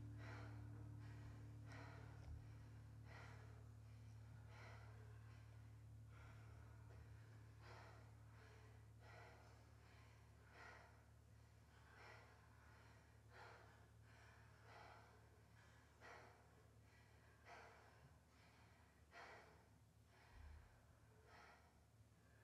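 Faint audible breathing of a group of dancers standing still, regular breaths in and out about every second and a half, over a low steady hum that slowly fades.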